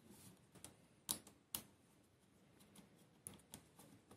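Near silence broken by a handful of faint, short plastic clicks and taps as hands handle the opened ASUS ROG Gladius III Wireless mouse and tuck its internal cable.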